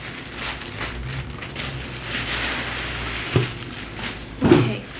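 Packaging being torn open and handled, a crinkling rustle with two sharp knocks near the end.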